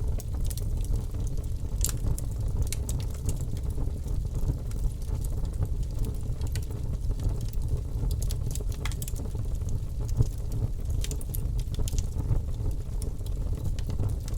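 Bonfire burning: a steady low roar with scattered sharp crackles and pops, a few louder ones standing out.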